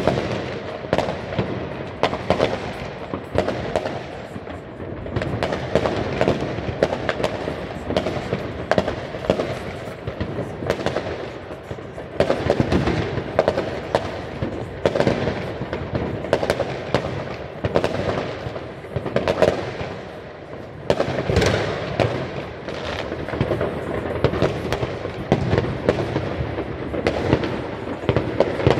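Many New Year's fireworks going off at once from several places: a continuous crackle of bangs and pops with louder booms standing out. There is a brief lull about twenty seconds in, ended by a big bang.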